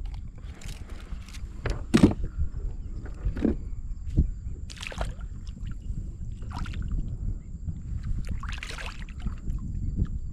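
Shallow water splashing and sloshing in short irregular bursts, about seven of them, the loudest about two seconds in, over a steady low rumble, as a hooked fish is fought in at the surface.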